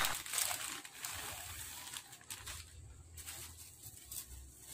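Faint crinkling and rustling of a clear plastic bag as a packaged synthetic wig is handled and taken out, just after a burst of music and applause fades out at the start.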